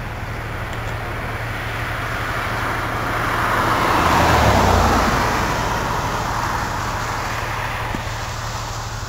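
A car passing by: a rushing noise that builds, peaks about halfway through and fades away.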